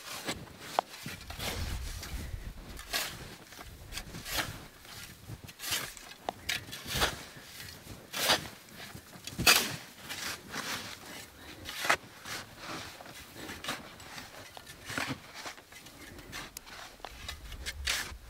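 Snow shovel digging into heavy, wet snow, with repeated scoop-and-scrape strokes roughly one every second and a half.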